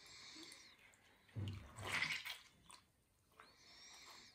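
Water sloshing and dripping as hands squeeze and pull apart soaked silkworm cocoons in a glass bowl of warm water. There is a louder slosh around the middle, with small wet clicks throughout.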